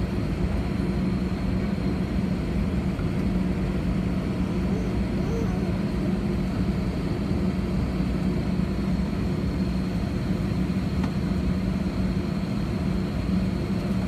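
Steady cabin noise inside an Airbus A320 taxiing with its jet engines at idle: a constant low hum with a faint steady high whine above it.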